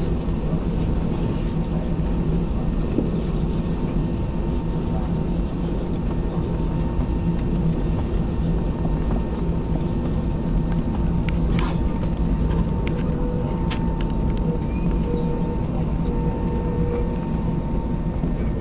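Airbus A320's jet engines running at low taxi power, heard inside the cabin: a steady rushing hum with a few held tones through it. A few faint clicks come around the middle.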